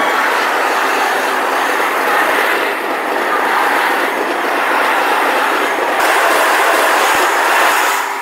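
Freight train of open-top wagons passing close by, a steady loud noise of its wheels running on the rails.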